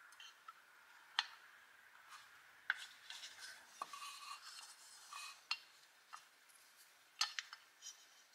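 Light clicks and scraping of small parts being handled: a steel axle pin slid through a toy wheel and fitted into a toy truck body, with a few sharp ticks as the parts knock together.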